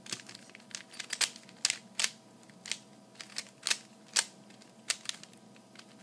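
Plastic 3x3 Rubik's Cube being turned by hand: a string of sharp clacks and smaller clicks at uneven intervals as its layers snap round. The sequence being worked is the one that twists the last-layer corners into place.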